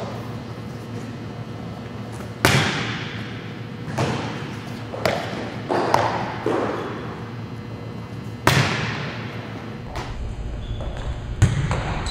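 Volleyball impacts in a large gym: several sharp thumps of the ball being bounced and struck by hand, the loudest two about two and a half seconds in and near eight and a half seconds, each echoing in the hall.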